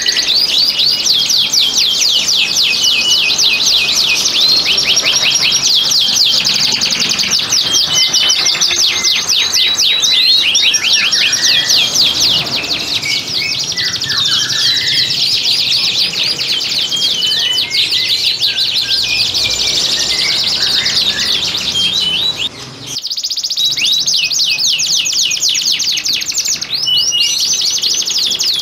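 Domestic canaries singing continuously in long, fast, high-pitched trills and rolls. The song breaks off briefly about two-thirds of the way through, then resumes.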